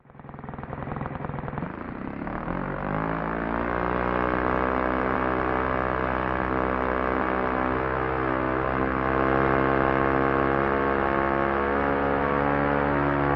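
Propeller airplane engine starting up abruptly, rising in pitch over the first few seconds as it throttles up, then running steadily.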